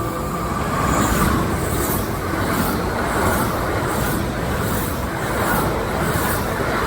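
Kintetsu Osaka Line train running through the station at speed: a loud, steady rush with a regular clatter of wheels over the rail joints.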